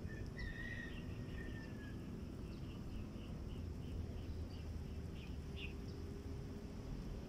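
Birds calling: a drawn-out whistle that slowly falls in pitch over the first two seconds, and a run of short chirps repeated about three times a second, over a steady drone of insects.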